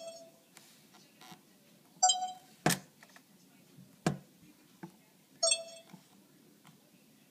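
Camcorder touchscreen beeping as a finger taps through its menus: two short electronic beeps, about two seconds in and again after five seconds, with two sharp clicks in between.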